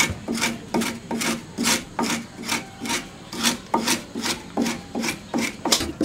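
A wooden scraper being drawn hard along a fresh green leaf, about two strokes a second, each a short rasping scrape: the pulp is being stripped off to free the leaf's fibres for making string.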